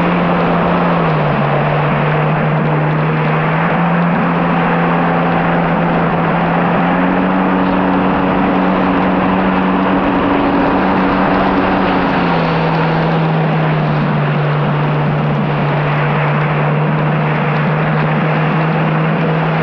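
Kawasaki SX-R 1500 stand-up jet ski's four-stroke inline-four engine running at speed over a steady rush of water and wind. The engine note steps down about a second in, steps up around seven seconds, and drops again around twelve seconds.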